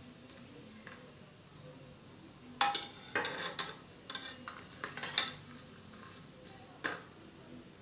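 Metal perforated skimmer scraping and clinking against the inside of a pressure cooker while stirring whole spices in hot oil. A cluster of knocks and scrapes starts about two and a half seconds in and lasts a few seconds, with one more knock near the end.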